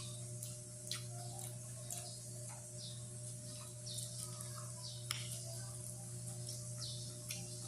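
Close-miked eating sounds: irregular wet mouth clicks and smacks of chewing, a few each second, over a steady low hum.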